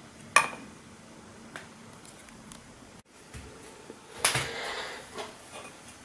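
Hard plastic washing-machine pump filter being handled: a sharp click just under half a second in, then a longer stretch of clattering and scraping about four seconds in.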